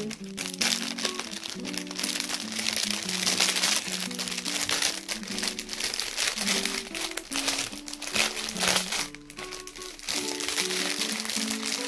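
Plastic packaging crinkling and crackling irregularly as it is handled and unwrapped, over background music with a simple repeating melody.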